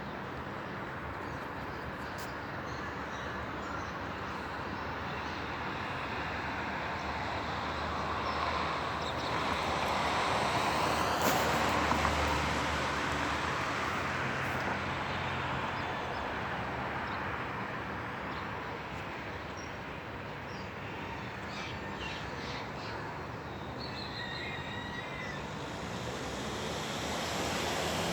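Steady road-traffic hum that swells as a vehicle passes, loudest about ten to thirteen seconds in, with a few faint bird calls near the end.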